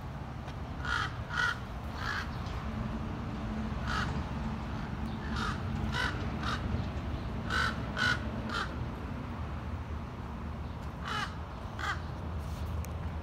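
A bird calling from the tree: short calls in groups of two or three, about a dozen in all, with a pause in the middle before the last two.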